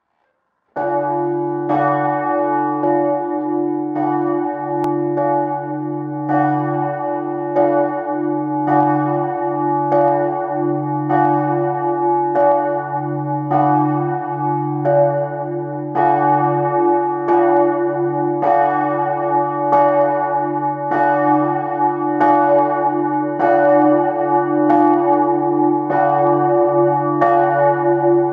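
Church bells ringing steadily, a new strike about every three-quarters of a second over a continuous low hum, starting about a second in.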